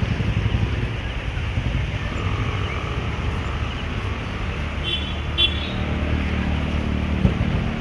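Street traffic: a steady low engine rumble of passing vehicles, with a couple of short high chirps about five seconds in.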